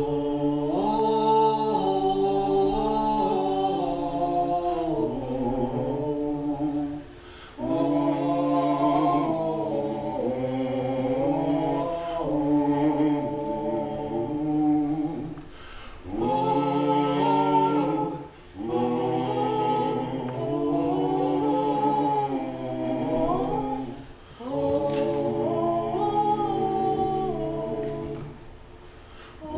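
Several voices singing a cappella in harmony, with a lower voice holding steady notes under the upper parts. The singing comes in phrases of a few seconds with short pauses between them.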